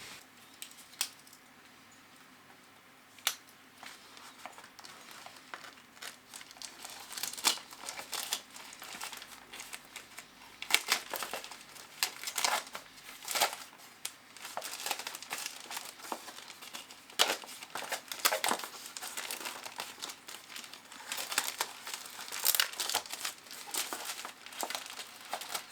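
Packaging being unwrapped by hand: an irregular run of crinkles and tears, with only a couple of clicks in the first few seconds and then busier, denser handling.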